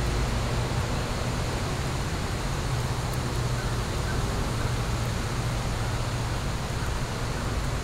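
Wood fire burning in an outdoor fire pit: a steady rushing noise with a low rumble underneath and a few faint crackles.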